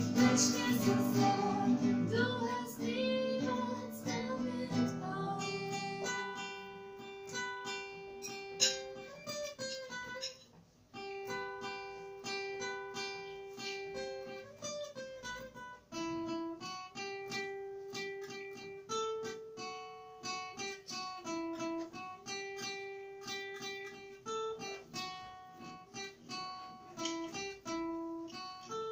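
Live acoustic cover of a pop song: two acoustic guitars with a woman singing. It is fuller and louder for the first six seconds or so, then drops to a quieter passage of held notes over the picked guitars.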